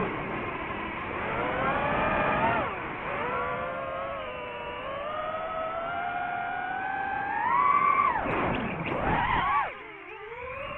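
DJI FPV drone's motors and propellers whining. The pitch rises and falls with the throttle, climbs highest and loudest about eight seconds in, then swoops sharply down.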